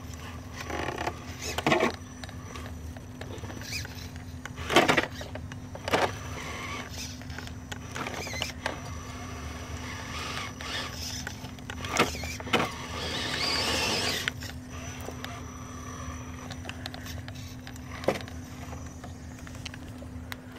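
RC rock crawler's electric motor and gearbox whining in short bursts as it climbs over rocks, over a steady low hum. Sharp knocks of the tyres and chassis on stone come several times, and there is one longer whine of a second or two in the middle.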